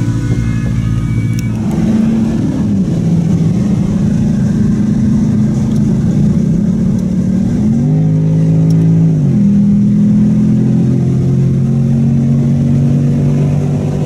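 Bentley Continental GTC Supersports' twin-turbo W12 accelerating through the gears. The revs dip about two and a half seconds in, climb sharply about eight seconds in, then drop at an upshift a second later.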